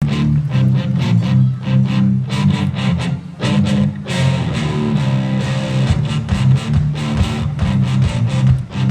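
Band music from a vocal-instrumental ensemble: strummed guitar and bass guitar over a steady, regular drum beat.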